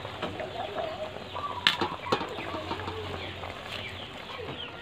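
Chickens clucking with many short high chirps in the background, and two sharp knocks about two seconds in.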